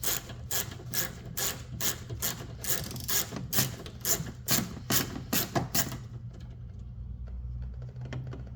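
Ratchet loosening a side-mirror mounting screw inside a car door, clicking in short strokes about twice a second. The clicking stops about six seconds in.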